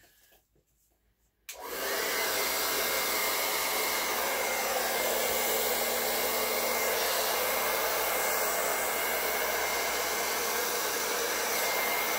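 Hair dryer switched on about a second and a half in, then running steadily: a rush of air with a faint high whine.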